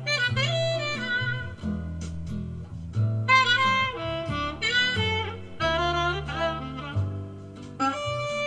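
Jazz recording with a saxophone melody that bends between notes in short phrases over a bass line. It is played back through an old CORAL EX-102AV passive speaker whose crossover network has been fitted with Orange Drop capacitors.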